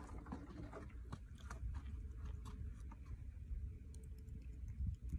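Scattered small clicks and crackles over a low, uneven rumble as a caught rabbitfish is swung in on a long pole and handled.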